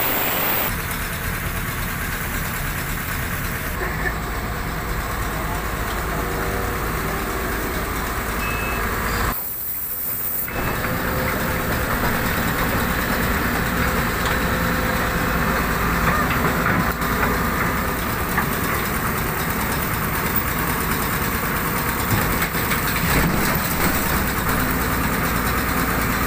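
Diesel engines of Sumitomo hydraulic excavators running steadily under load as they lift an overturned dump truck back onto its wheels.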